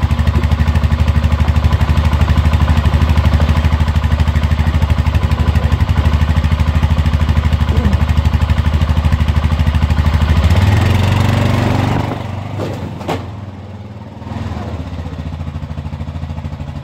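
Stels Leopard quad's warmed-up engine idling steadily close by, then revving briefly as the ATV pulls away about ten seconds in, after which it runs on quieter and farther off. A single sharp click comes shortly after.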